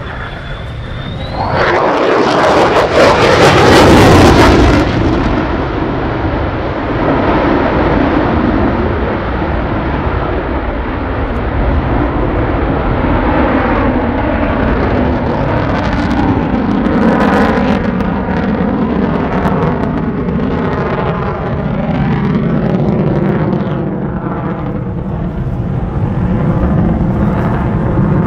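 F-35A Lightning II fighter jet's single Pratt & Whitney F135 turbofan roaring as the jet manoeuvres overhead. The roar surges about two seconds in and is loudest around four seconds, then carries on with a wavering, sweeping tone as the jet turns and climbs.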